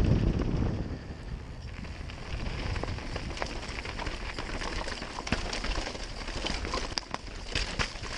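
Mountain bike riding fast down a rough forest trail: tyres crunching over dirt, stones and roots, with frequent clicks and rattles from the bike. Heavy wind on the microphone drops away about a second in.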